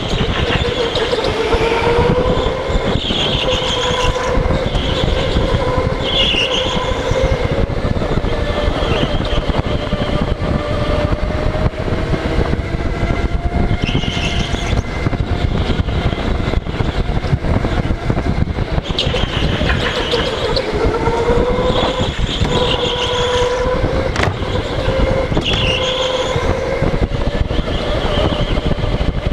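Go-kart motor heard from the driver's helmet as the kart laps a track, with a steady whine that rises and falls in pitch as it speeds up and slows for corners. Heavy rumble from wind and vibration lies under it, with an occasional knock.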